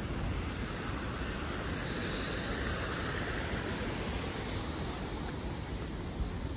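Steady outdoor background noise, a low rumble and hiss, swelling slightly for a couple of seconds about two seconds in.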